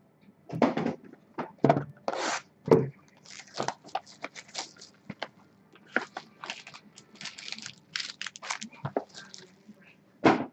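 Trading-card boxes and a foil pack wrapper being handled and opened by hand: a string of irregular crinkles, scrapes, tears and light taps of cardboard and foil.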